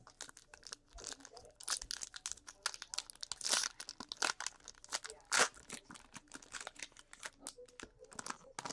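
Trading-card pack wrapper being torn open and crinkled by hand: a busy run of sharp crackles and rips.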